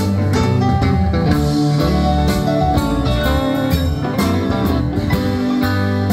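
Live rock band playing: electric guitars over bass, drum kit and keyboard, amplified through a PA.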